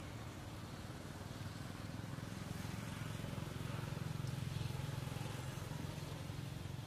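A low engine hum that grows louder to a peak about four to five seconds in, then fades again, as of a motor vehicle passing.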